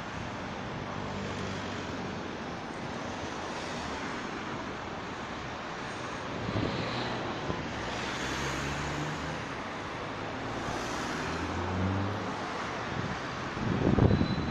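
Road traffic around a roundabout: a steady wash of car engine and tyre noise, with low engine hums rising and fading as vehicles pass. A louder low rumble comes near the end.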